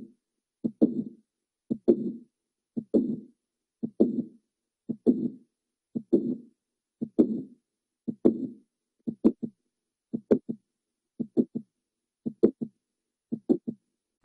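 Recorded heart sounds of mitral valve prolapse, beating about once a second. Each beat is a sharp click followed by a short murmur. In the later beats the clicks come in quick pairs or triplets with less murmur.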